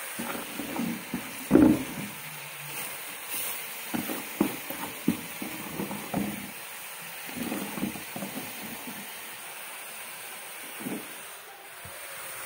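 Handfuls of chopped greens scooped from a plastic basin and dropped into a cooking pot: irregular rustles and soft knocks, the loudest about a second and a half in, over a steady hiss.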